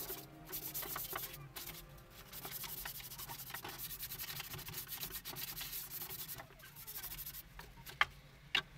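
Hand rubbing over the freshly painted wooden tabletop: a faint, quick back-and-forth scraping, followed by a couple of light knocks near the end as the table is turned.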